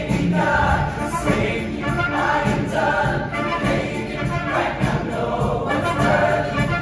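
A high school show choir singing together, many voices, over musical accompaniment.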